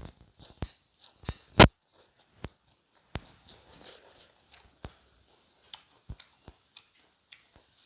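Close-up eating sounds from fish curry: scattered wet mouth clicks and smacks while chewing. There is one much louder sharp knock about a second and a half in.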